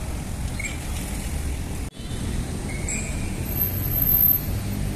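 Street traffic ambience: a steady low rumble of cars passing through a town-centre intersection, with a brief dropout a little under two seconds in.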